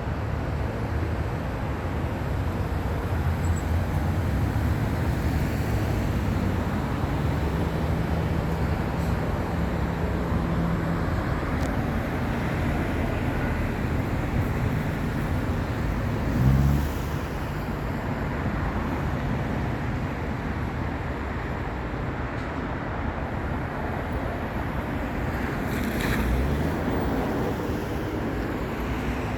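Steady roadway traffic noise, with vehicles passing and engine hum. A brief loud low thump about halfway through, and another vehicle swelling past near the end.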